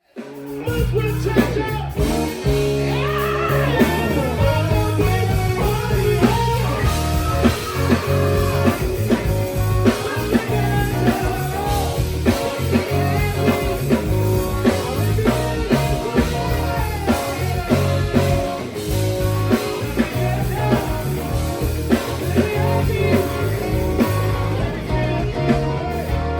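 Rock song with electric guitar, bass, drums and singing, starting abruptly after a moment of silence.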